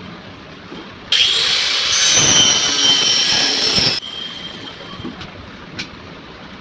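A small electric motor runs with a high whine for about three seconds, starting suddenly about a second in and cutting off sharply; its pitch steps up partway through. A quieter mechanical rustle continues around it.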